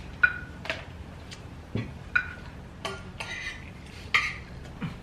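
Cutlery and serving utensils clinking against plates and dishes at a meal table: about nine scattered, sharp clinks, a few ringing briefly.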